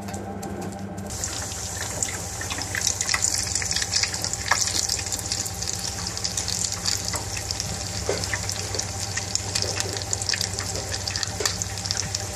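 Breadcrumb-coated chicken pakora sizzling and crackling in the hot oil of a stainless steel deep fryer, starting abruptly about a second in and going on steadily. A steady low hum runs underneath.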